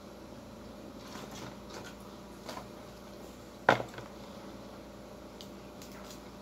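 Light clicks and handling noises of eating by hand from a plate, with one sharp knock of something striking the table a little past halfway, over a steady low hum.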